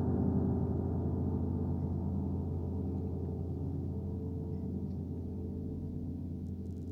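Piano chord held with the sustain pedal, ringing on and slowly fading, with no new notes struck. It is the closing sonority of a piece imitating bells.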